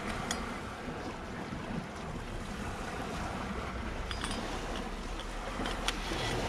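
Sea waves washing on the shore, with wind rumbling on the microphone. A few faint clicks stand out over it.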